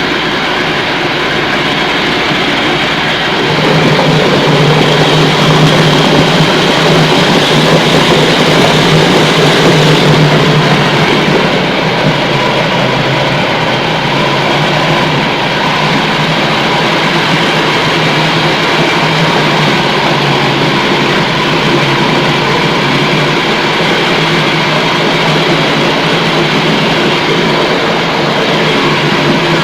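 Size-70 meatball meat grinder running with a loud, steady mechanical drone. It grows louder from about four seconds in until about eleven seconds, then settles back to a steady run.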